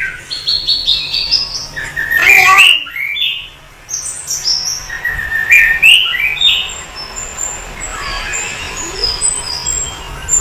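Birds chirping in quick, high, repeated chirps, with a louder squawk about two to three seconds in and short high peeps toward the end.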